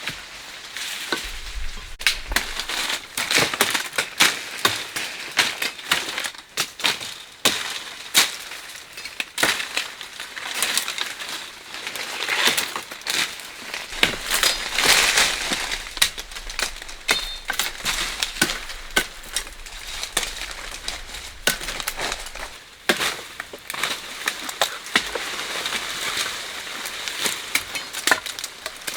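Dry leaves and twigs crunching and snapping, with many irregular sharp cracks.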